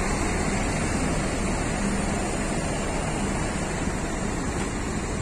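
Idling bus engines: a steady, even rumble with a hiss over it, unchanging throughout.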